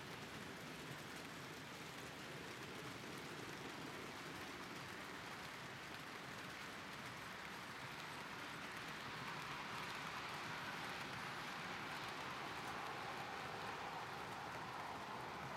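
HO-scale model freight wagons rolling past on model railway track: a steady rushing clatter of many small wheels on the rails, getting a little louder about nine seconds in.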